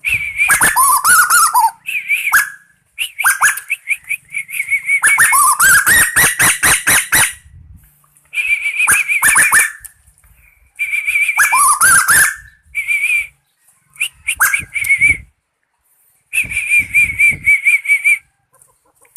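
A burung tuwu calling in loud bouts of a few seconds with short pauses between them. Each bout mixes a rapid high trill, quick notes sliding down in pitch, and runs of sharp clicks.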